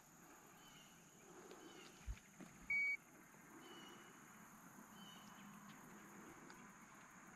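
A single short electronic beep from a handheld digital fish scale about three seconds in, weighing a just-caught bass. A low knock comes just before it, and a few faint chirps sound over quiet outdoor background.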